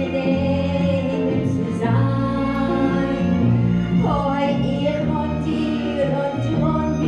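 Klezmer band playing live: a woman sings long held, sliding notes over double bass and guitar.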